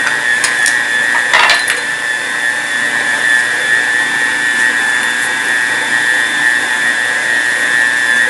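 Electric stand mixer running at a steady speed, its dough hook kneading whole-wheat bread dough, with a constant high motor whine. A few light taps and clicks come in the first two seconds.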